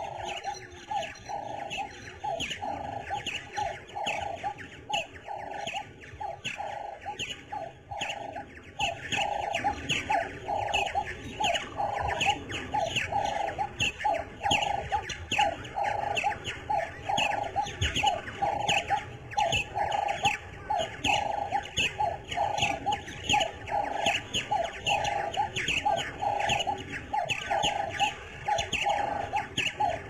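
Birds calling in steady, rapid repetition: a lower note repeated about twice a second, with quicker high chirps over it.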